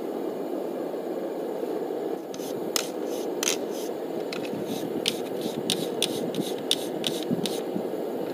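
Hand hammer striking a hot steel-cable billet on an anvil during forge welding: about a dozen quick blows, two or three a second, starting about two seconds in. A steady rushing noise runs underneath.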